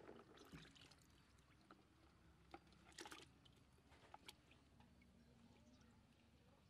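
Faint splashing of water as a hand swishes tamarind pods in a bucket of water, then a few faint clicks and rustles as the wicker basket of wet pods is handled.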